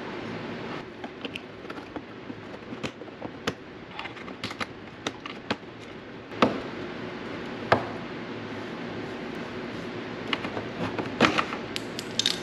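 Plastic trim-removal tool prying at a car's plastic wheel-well liner and its clips: scattered light clicks and scrapes, two sharper snaps around the middle, and a quick run of clicks near the end.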